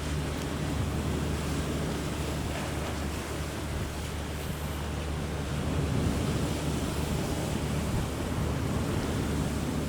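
Strong wind blowing across the microphone and rough sea waves washing, over a steady low drone from a ship's engines.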